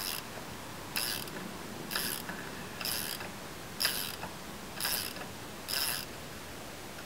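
Socket ratchet clicking in short bursts, about one a second, seven times, as it is swung back and forth on a car wheel's lug nut; the clicking stops about six seconds in.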